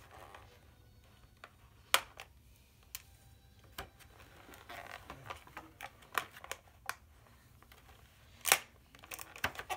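Handling and unboxing of a plastic Beyblade launcher and its packaging: scattered clicks and rustling, with two loud sharp snaps, one about two seconds in and one near the end.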